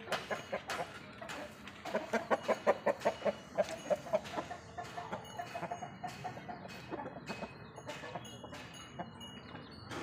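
Aseel rooster clucking: a quick run of clucks starting about two seconds in and lasting two to three seconds, then fainter, scattered clucks.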